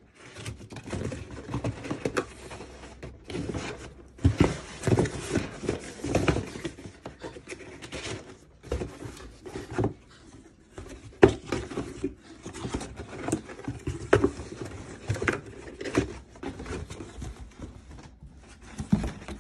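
Cardboard wine shipping box being handled: its flaps and folded cardboard insert rustling, scraping and knocking irregularly as hands open it.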